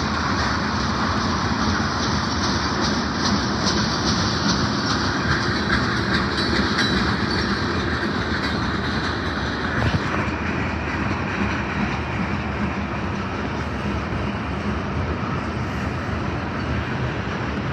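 Train cars rolling past: a steady rumble and hiss of steel wheels on rail, with a clickety-clack of wheels over rail joints.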